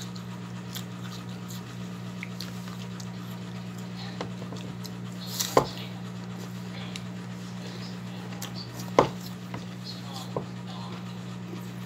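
Chewing and mouth sounds of someone eating by hand, with scattered short sharp crunches or clicks, the two loudest about five and a half and nine seconds in, over a steady low hum.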